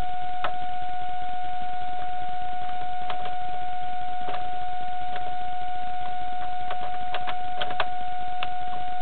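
A steady, high-pitched electrical hum from a model railway layout, with irregular small clicks scattered through it, clustering a little before the end.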